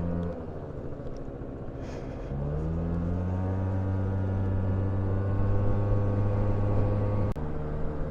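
Car engine heard from inside the cabin while driving: the engine note falls away early, then from about two seconds in rises in pitch as the car accelerates and holds a steady note, dropping suddenly near the end.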